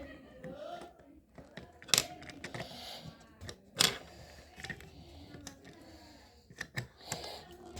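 Small plastic toy parts being handled and snapped together: scattered sharp clicks, the two loudest about two and four seconds in, over light rustling.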